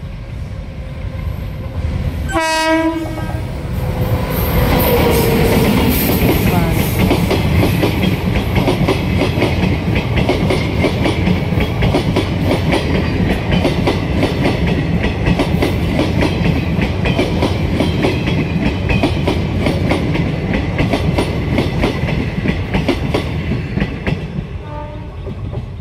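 An Indian Railways passenger train sounds a short horn blast about two and a half seconds in, then runs past close by at speed. A long, loud rumble of coaches follows, with rapid clickety-clack of wheels over rail joints. The rumble fades near the end as a horn sounds faintly again.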